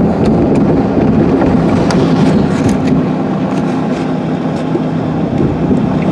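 Steady running noise of a car being driven on a snowy, icy street, heard from inside the cabin: a constant low engine hum under tyre and road noise.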